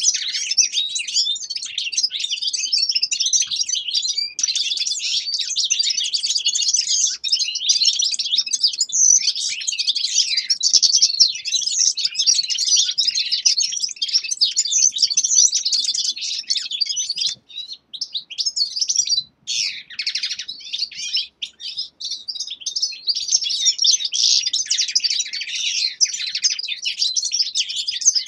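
Several caged finches twittering and singing over one another, a dense, almost continuous high twitter with a few short breaks about two-thirds of the way through.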